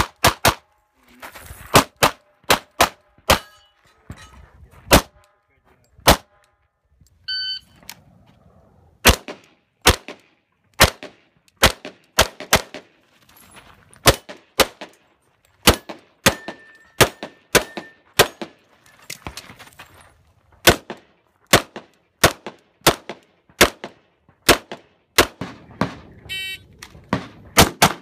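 Pistol shots fired in quick strings, about one a second and some closer together, with short pauses between strings. An electronic shot timer beeps about seven seconds in and again near the end, and each beep is followed by a new string of shots.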